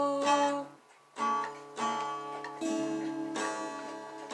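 Acoustic guitar being strummed under a singer. The last sung note is held briefly and ends, the guitar stops for a moment about a second in, then chords are strummed again in an even rhythm.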